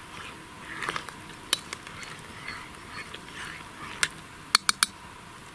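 A metal spoon clinking against an enamel cooking pot as the stew is stirred: a single clink about a second and a half in, another near four seconds, then three quick ringing clinks near the end.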